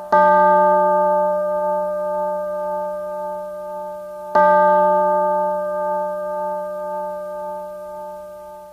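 Two strikes of a bell-like instrument, about four seconds apart, each ringing on in several steady tones and slowly dying away.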